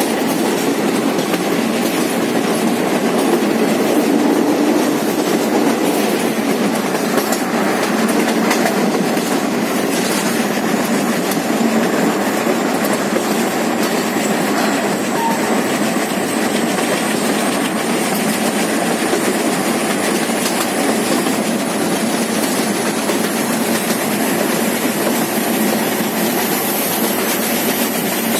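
Running noise of a moving train heard from inside a carriage at an open window: a steady loud rumble and rattle of wheels on rails with faint rail clicks, as the train crosses a river bridge. A faint high whine slowly rises in pitch over the last ten seconds or so.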